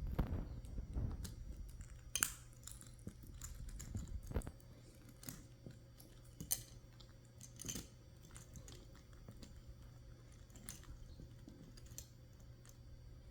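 Caique parrots' beaks crunching and tearing at something, with scattered sharp clicks and crunches, busiest in the first few seconds, over a steady low hum.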